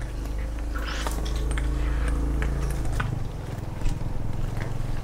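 A steady low motor hum that holds for about three seconds and then fades, with a few faint clicks and rustles of a nylon gill net being handled.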